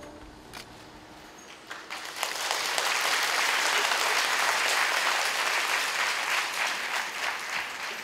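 Audience applause at the end of a dance performance: after a lull with a few scattered claps, clapping breaks out about two seconds in and carries on steadily.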